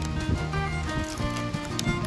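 Background music with shifting sustained notes and a light percussive beat.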